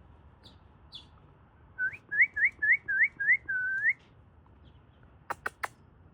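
A quick run of about seven whistled notes, each a short upward slide, followed by three short sharp clicks near the end. A couple of faint high chirps come before the whistles.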